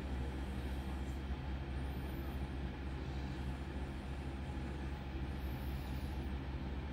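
Steady low mechanical hum, unchanging throughout, with faint high chirps twice.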